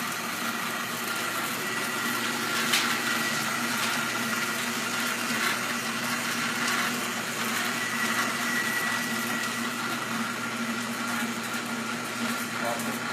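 Canedy-Otto camelback drill press running with its power feed engaged, driving a 3/4-inch bit through a steering arm: a steady mechanical hum with a couple of steady higher whines.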